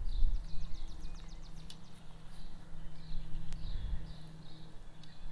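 Songbirds singing: short, falling chirps repeated over and over, with a fast trill in the first second and a half. Beneath them runs a low steady rumble, and a few sharp clicks come through.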